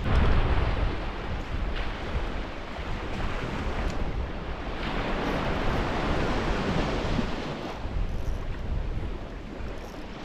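Surf washing onto a sandy beach, with wind buffeting the microphone as a low rumble, strongest in the first second.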